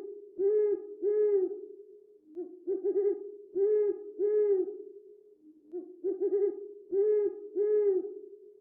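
An owl hooting: three phrases about three seconds apart, each a quick stutter of short low notes followed by two or three longer hoots.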